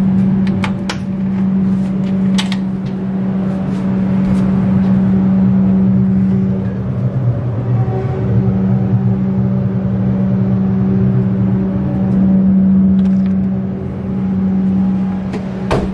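Comeng electric train heard from inside, at the gangway between cars: a steady, loud electrical hum with a few sharp rattles and clicks in the first couple of seconds and a knock near the end.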